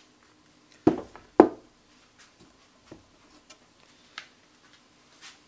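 Two sharp knocks about half a second apart, the second louder, from handling a cordless impact driver and its battery pack, followed by a few faint light taps.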